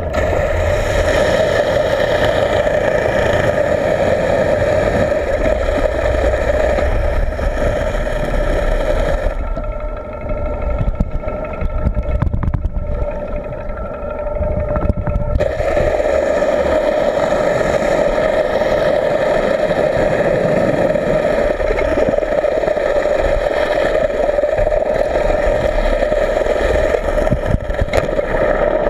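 Boat engine and propeller drone heard underwater, a steady whine with a low rumble beneath it. For several seconds near the middle the higher tones fade and the sound grows quieter and rougher, then the steady whine returns.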